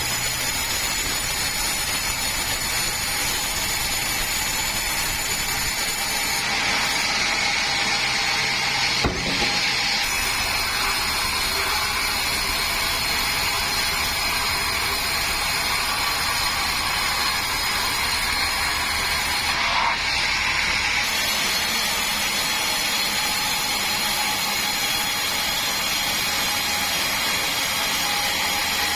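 Sawmill machinery running steadily while sawing meranti timber, with a high whine over a broad mechanical noise. There is a single sharp knock about nine seconds in.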